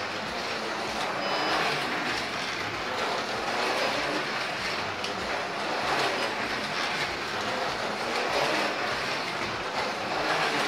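Slot cars running on a plastic track: small electric motors whining and guide pickups rattling along the slots. The sound is steady and loud, swelling and fading every couple of seconds as the cars pass by on their laps.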